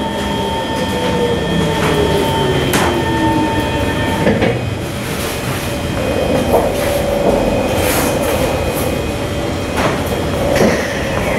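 Interior of a Kawasaki C151 metro train running, with a whine that falls in pitch over the first few seconds as the train slows. A steady whine sets in about halfway, over a constant rumble and a few sharp clicks of wheels over rail joints.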